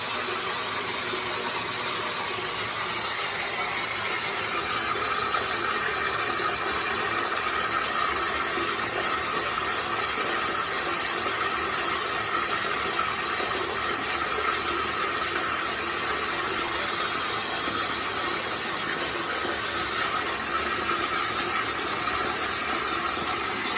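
Bathtub faucet running steadily into the tub, turned fully to the hot side, with an even rush of water.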